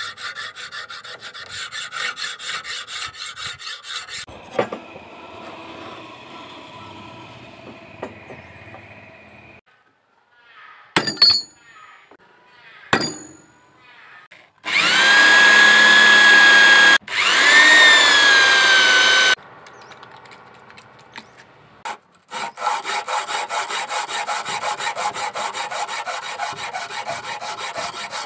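A metal file rasping in quick, even strokes on a steel knife blade made from a leaf spring. Partway through, a few sharp clicks are followed by a small power tool motor running loudly for about five seconds, with a brief dip in the middle. The quick file strokes then resume.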